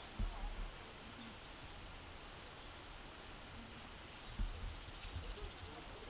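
Outdoor insect chirping, with a fast pulsing high trill in the second half. Low thumps on the microphone come near the start and again after about four seconds.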